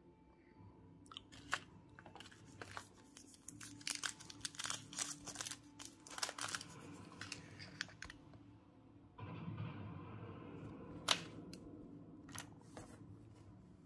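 Plastic and foil chocolate-bar wrappers crinkling and tearing as they are unwrapped by hand, in a dense run of sharp crackles. A couple of seconds of steadier rustling follows, then a few more crackles, one louder near the end.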